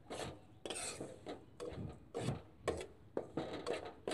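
A metal spoon scraping and turning coarse mustard oil cake in a non-stick pan as it roasts in coconut oil, in short irregular strokes about two a second.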